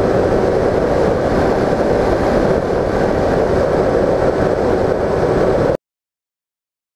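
Bixler 1.1 RC plane's stock brushless motor and pusher propeller running steadily, with wind rushing past the onboard camera. The sound cuts off abruptly almost six seconds in, into dead silence.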